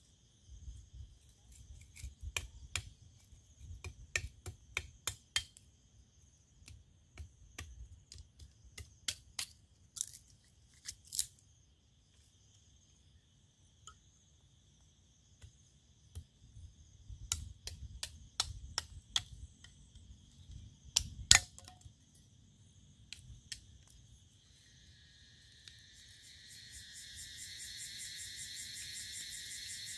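Dry sticks cracking and snapping in irregular sharp bursts as a small campfire is built and fed, one crack about two-thirds of the way through louder than the rest. Insects chirr steadily underneath, and near the end a louder, evenly pulsing insect chorus sets in.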